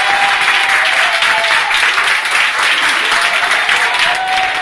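A large crowd of people clapping continuously, a dense, steady applause, with a few voices audible over it.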